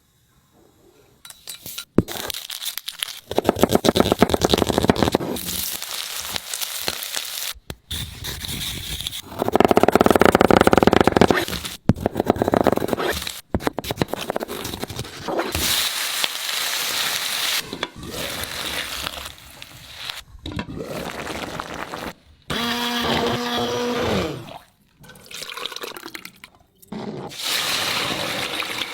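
Tomato soup being made, in short cut-together clips: mostly running and pouring water and liquid. About two-thirds through comes a steady pitched hum of a couple of seconds that drops in pitch as it ends.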